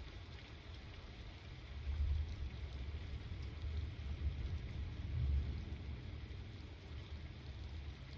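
Steady rain falling, an even hiss, under a low rumble that swells twice, about two seconds in and again a little after five seconds.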